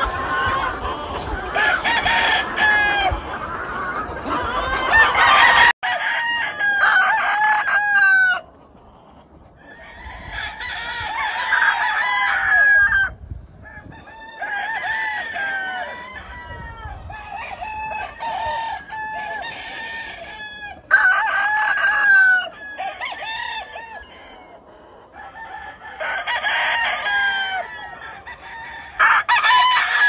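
Several gamefowl roosters crowing one after another and over each other, with clucking between the crows.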